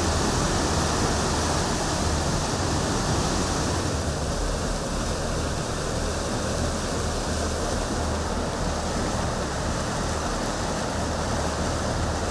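Flash-flood water rushing and churning in a muddy, swollen channel, a steady, even rushing noise.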